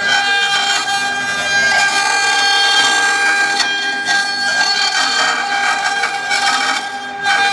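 CNC router spindle running with a steady high whine while its end mill carves a turning wooden workpiece on the rotary axis, with a rushing noise of the cut.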